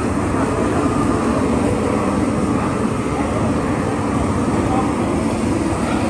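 Propane torches running with a steady, even rushing noise as they singe plucked chickens.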